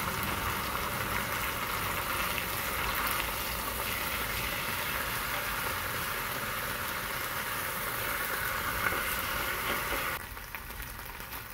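Thinly sliced ribeye frying in oil in a nonstick pan: a steady sizzle that turns quieter near the end.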